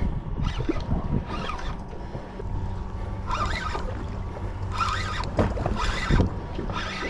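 Spinning reel being wound in short spurts, about every second or so, as a hooked kingfish is pumped up to the boat. Wind rumble on the microphone and a low steady hum lie underneath.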